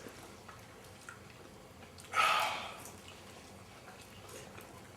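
A can of cola cracked open about two seconds in: a sudden fizzy hiss that fades within about half a second.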